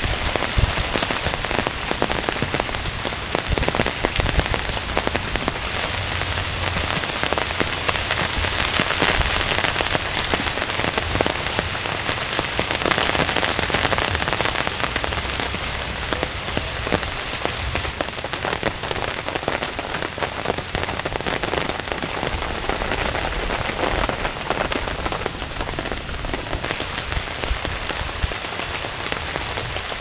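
Heavy rain falling steadily on forest foliage, a dense, even patter of countless drops.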